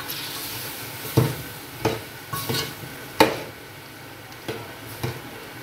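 A spatula stirring a chicken, pea and tomato curry in a metal cooking pot, scraping and knocking against the pot's side in irregular strokes, the loudest about three seconds in, over a light sizzle.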